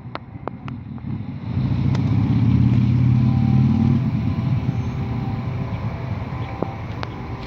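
A motor vehicle's engine rumble swells about a second and a half in, is loudest for a couple of seconds, then slowly fades, like a vehicle passing close by.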